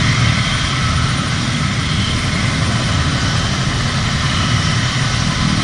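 Helicopter running on the ground before takeoff: a steady turbine whine over a low rumble from the engines and rotor.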